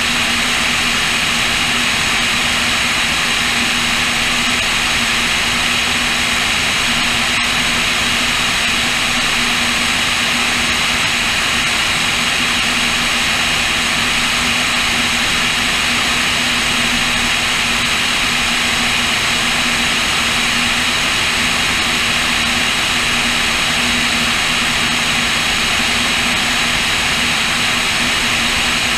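Cessna O-2A's twin push-pull piston engines and propellers droning steadily in flight, mixed with a steady rush of wind on a wing-mounted GoPro. One brief click about seven seconds in.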